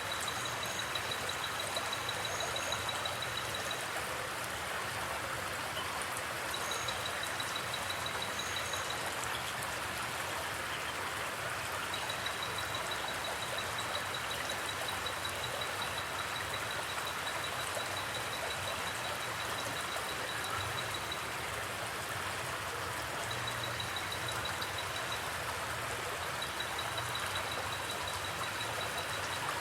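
Steady rush of flowing water from a forest creek or river. A high, rapid pulsing trill starts and stops several times over it.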